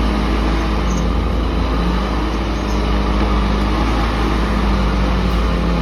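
Heavy machine's engine running steadily, its pitch wavering slightly.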